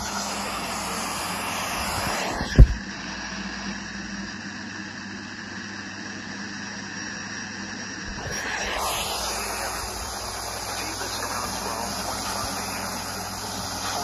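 Steady hiss of static from a Sangean portable radio, with one sharp knock of the set being handled about two and a half seconds in.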